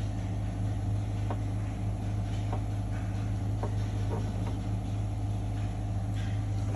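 Steady low hum with about five faint, light metallic clicks scattered through it, from a freshly oiled camshaft being handled and turned in the cylinder head.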